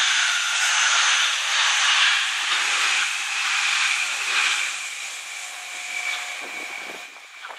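Tobu limited express electric train passing close at speed: a rush of wheel and air noise with a steady high whine running through it, loudest over the first few seconds and fading as the train pulls away.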